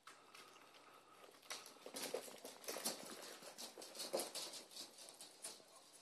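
Chihuahua puppies' claws pattering on a laminate wood floor as they scamper about: a quick, irregular run of small clicks and taps that starts about a second and a half in.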